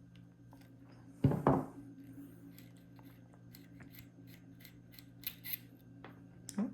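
Handling of a Zippo lighter pack's packaging: a loud scraping rustle about a second in, then a string of small sharp clicks and taps, and another short scrape near the end, over a steady low hum.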